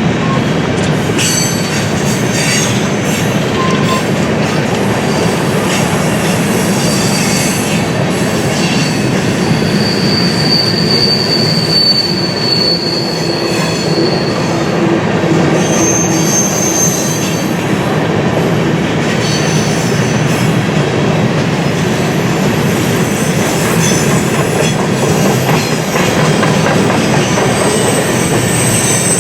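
A BNSF freight train's cars rolling past, a steady rumble of steel wheels on rail broken by several short high-pitched wheel squeals.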